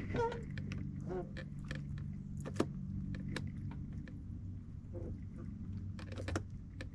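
Boat motor idling with a steady low hum, with scattered light clicks and knocks over it.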